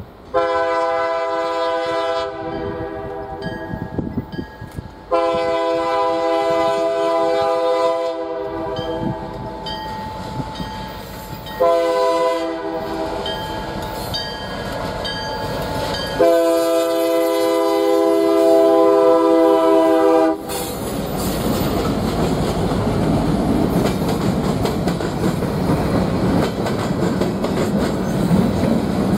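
Canadian Pacific EMD SD40-2 locomotive's multi-note air horn sounding four blasts, the last held about four seconds and cut off sharply about twenty seconds in. Then the locomotives and loaded freight cars roll past close by with a steady rumble and wheel clatter over the rail joints.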